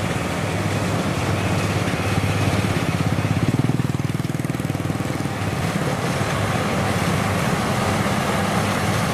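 Two Kubota rice combine harvesters, a DC60 following a DC1115, running their diesel engines and cutting and threshing machinery as they harvest: a steady drone that grows louder a few seconds in as they come closer.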